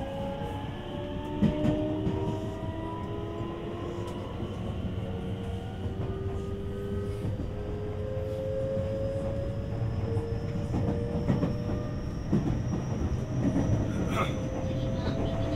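A JR West 225 series electric train, heard from inside the car: several thin motor whines rise slowly in pitch as it picks up speed, over the steady rumble of wheels on rail. A few rail-joint clacks come about a second and a half in and again near the end.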